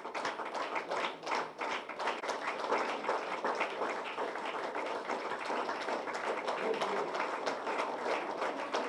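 Audience applauding, a steady stream of many hand claps.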